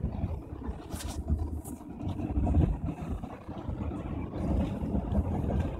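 Steady low rumble of engine and road noise heard inside a moving car's cabin, with a couple of brief hissing sounds about a second in.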